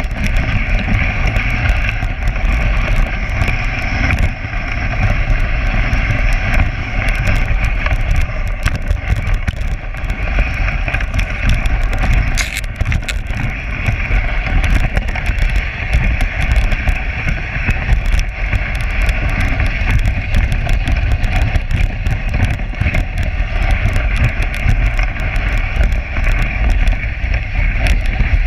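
Dog sled running fast over a packed snow trail: the runners hiss steadily over the snow while the sled frame rattles and knocks with constant small clicks, over a low wind rumble on the microphone.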